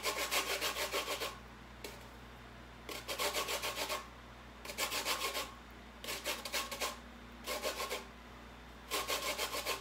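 Orange peel being grated on a stainless steel box grater: six short bouts of quick, rhythmic rasping strokes, each about a second long, with brief pauses between them.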